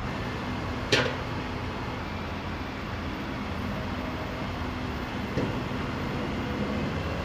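Roadside traffic noise: a steady rumble with a low hum. About a second in, a brief high squeak drops quickly in pitch.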